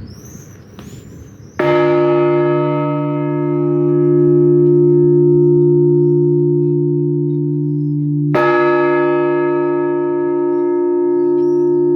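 A large church bell tolled slowly as a funeral toll: two strikes about seven seconds apart, each ringing on long with a deep hum beneath brighter overtones.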